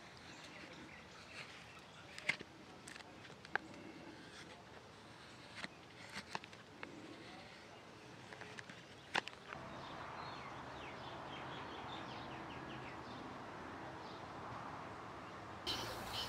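Morakniv 106 sloyd knife slicing shavings off an alder spatula handle: a few short, sharp cuts spaced a second or two apart in the first half. Birds chirp faintly in the background in the second half.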